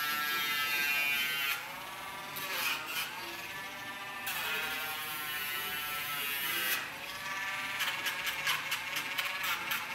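Handheld rotary nail grinder (Dremel) whirring while grinding a dog's nails; its pitch sags and recovers several times as it is pressed to the nail and eased off. Near the end, a quick run of short scratchy grinding strokes.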